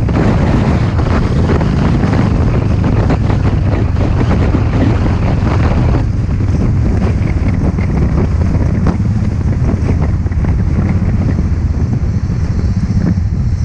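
Heavy wind rushing over the microphone of a camera on a moving motorcycle, over the low, steady running of the Royal Enfield Thunderbird 500's single-cylinder engine.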